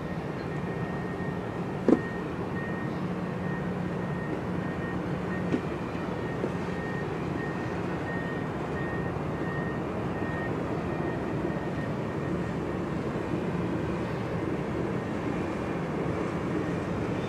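Steady low hum of a large cruise ship's engines under way, over open-air waterfront noise. A high beep repeats about every two-thirds of a second and fades out about ten seconds in, with two sharp clicks in the first six seconds.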